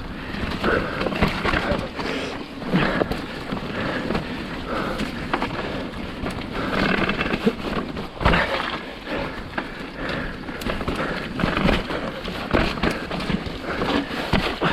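Mountain bike descending a rough trail: steady tyre noise on dirt and rock, broken by frequent irregular knocks and rattles as the bike hits bumps.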